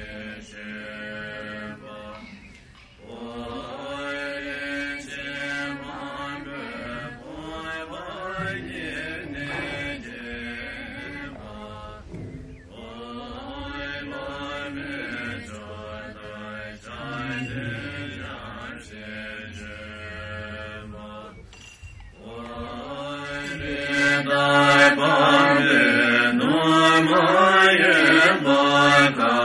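Melodic mantra chanting sung in long phrases of roughly ten seconds, each separated by a brief pause. It grows louder in the last few seconds.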